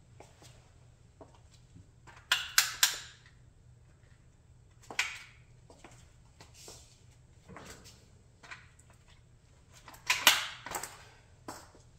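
High-heeled sandals clacking on a concrete floor and pressing down on a model car, giving sharp knocks and clicks in small clusters: three loud ones about two seconds in, one near the middle, and another loud group near the end.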